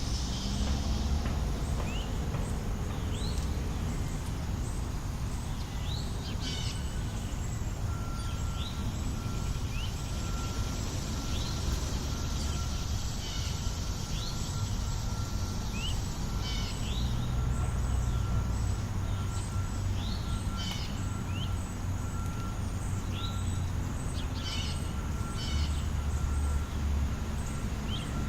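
Park ambience: short rising bird chirps every second or two over a steady low rumble of distant traffic, with a thin steady tone joining in about a third of the way through.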